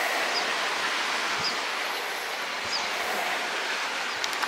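Steady rushing of sea surf washing against a rocky shore.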